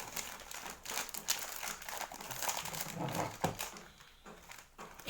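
Plastic snack packets crinkling and crackling as they are handled and opened, in quick irregular crackles; the handling quietens near the end.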